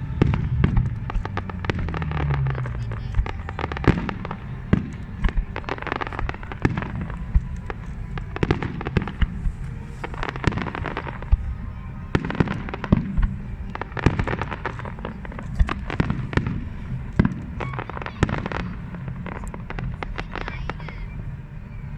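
Fireworks display going off in a rapid, irregular run of bangs and crackles, with music playing underneath.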